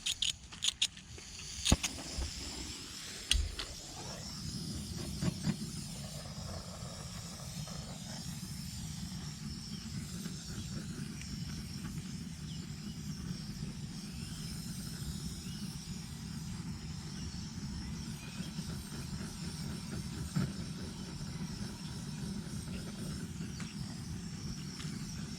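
Torch being relit with an igniter: a few sharp clicks in the first few seconds, then the torch flame burning with a steady rushing hiss, used to warm poly pipe.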